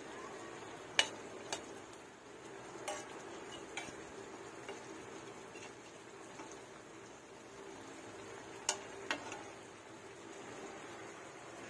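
Metal spatula knocking and scraping against an aluminium wok while a coconut-milk stew is stirred: a few sharp clinks, the loudest about a second in and another pair near the end, over the low steady sound of the pot simmering.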